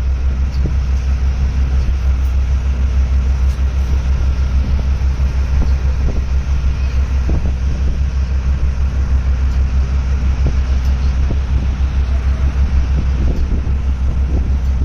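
A large engine running steadily with a deep, even rumble.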